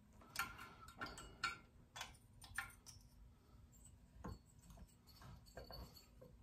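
Faint, scattered small clicks and taps of metal parts being handled at the flywheel of a partly stripped McCulloch chainsaw engine. There are about two a second at first, thinning out after about three seconds.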